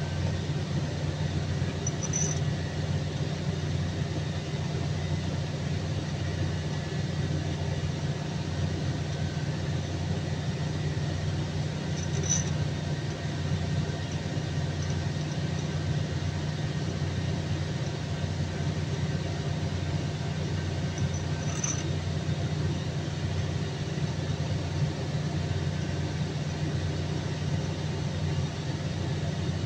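Steady low machine hum, unbroken and even, from running machinery. A faint, very short high chirp comes about every ten seconds, three times in all.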